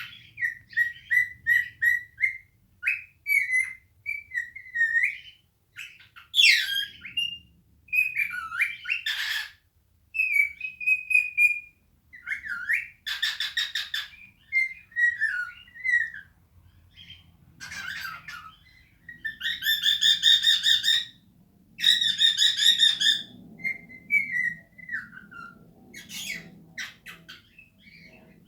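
Male cockatiel singing its natural warbling song: a run of short whistled notes that glide up and down, mixed with a few harsher, buzzy rasping notes.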